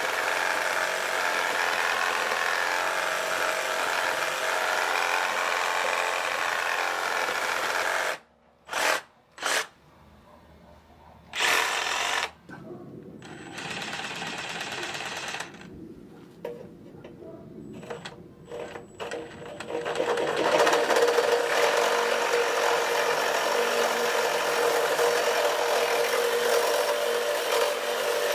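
Makita DJR188 brushless cordless reciprocating saw cutting through a log. After a pause there are a few short bursts as the saw starts again, and from about twenty seconds in it saws steadily through a square steel tube with a rapid, buzzing stroke.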